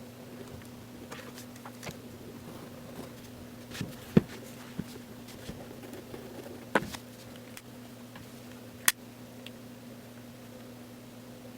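Scattered sharp knocks and clicks at irregular intervals, the loudest about four seconds in, over a steady low electrical hum.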